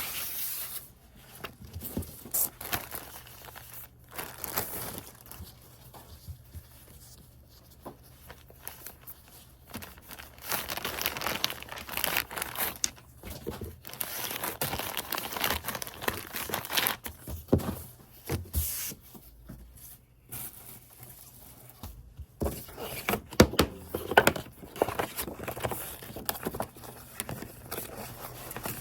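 Something crinkly being handled: irregular rustling and crinkling with scattered sharp clicks and knocks, busiest in the middle and again near the end.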